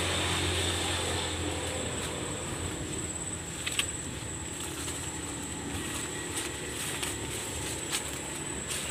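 Low engine hum of a distant vehicle, fading over the first couple of seconds, with footsteps rustling and crunching through dry leaf litter and a steady high-pitched drone.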